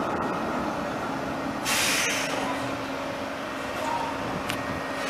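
Oslo SL79 articulated tram passing close by on street track, with a steady running hum and rumble. There is a short burst of hiss about two seconds in and a sharp click near the end.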